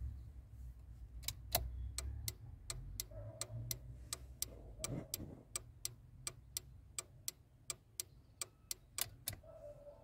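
Turn signal flasher relay in a Volkswagen Golf 3's under-dash relay panel clicking on and off, a steady ticking of about three clicks a second that starts about a second in and stops just before the end.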